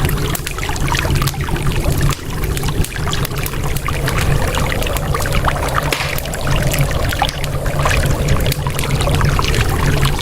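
Layered ambient mix of flowing, splashing water over a low steady rumble, with frequent short crackles of a wood fire.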